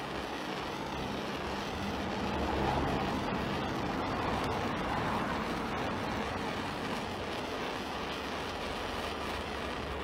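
Hose-fed blowtorch burning steadily with a continuous rushing hiss, its flame playing on a rigid plastic cable duct to soften it for bending.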